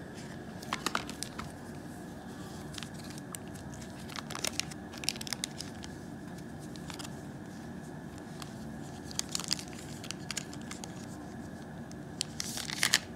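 Plastic packaging crinkling and rustling in short scattered spells as a new smartphone is handled and slid out of its protective plastic sleeve.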